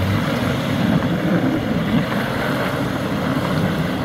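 Engine of a 4x4 pickup working under load as it reverses up a muddy slope, with wind noise on the microphone.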